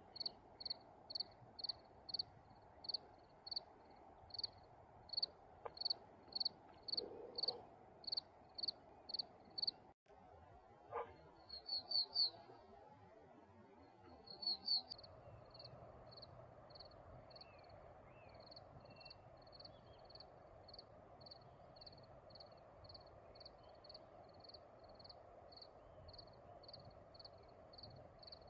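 A cricket chirping in a steady rhythm of short high chirps, about two a second. The chirps break off about a third of the way in, come back in a few quick clusters, then run on a little faster over a faint steady background hiss.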